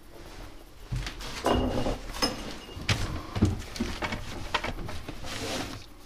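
Rummaging in a wooden wardrobe and among cardboard boxes: irregular knocks, scrapes and rustling of cardboard, cloth and paper, starting about a second in.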